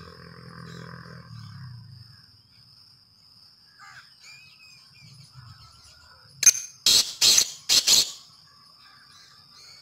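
Francolin (teetar) calling: a short note about six and a half seconds in, then four loud, noisy notes in quick succession over about a second. A steady thin high tone runs underneath.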